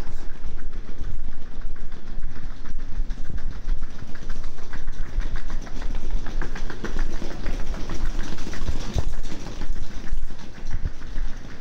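Wheeled suitcase rolling over a tiled floor: a steady rumble with rapid clicks as the wheels cross the tile joints.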